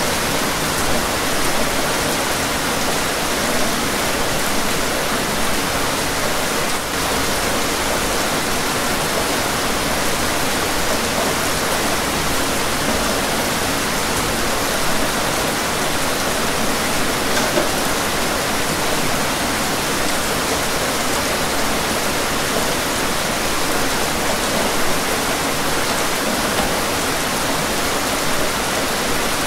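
Steady rain, a dense and even hiss with no breaks or single drops standing out.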